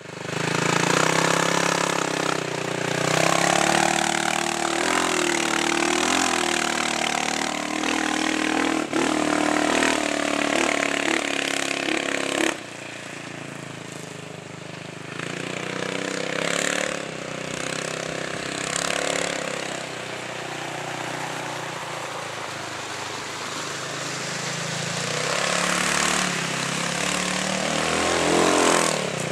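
Off-road dune buggy engine revving and bogging as the buggy drives up a muddy creek bed, its pitch rising and falling. About twelve seconds in the sound drops suddenly, and the engine carries on fainter, swelling with a few more revs.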